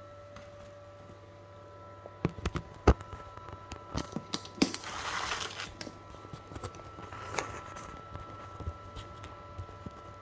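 Handling noise: a run of sharp knocks and clicks, loudest about three seconds in, then about a second of rustling, over a faint steady hum.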